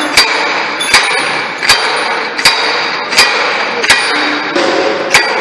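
Repeated sharp metallic clangs of a hand-held driver slamming the input shaft bearing and snap ring into an Eaton Fuller 10-speed transmission housing. Seven strikes, roughly one every three-quarters of a second, each ringing briefly.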